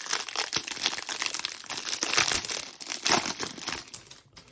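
Foil trading-card pack wrapper crinkling and tearing as it is ripped open, stopping about four seconds in.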